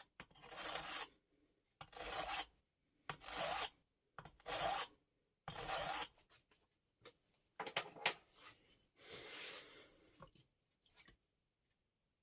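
Kiritsuke kitchen knife blade being scraped across an abrasive surface in five regular strokes a little over a second apart, followed by a few lighter scrapes and one longer, softer stroke.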